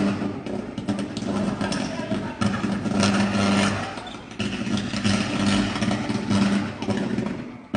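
Electrical arcing in a meter box: a crackling buzz that keeps breaking off and starting again.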